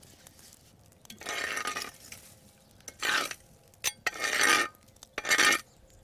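A long-handled metal ember rake (gelberi) scraping embers and ash off a fire-heated flat stone to clear it for baking bread, in four scraping strokes.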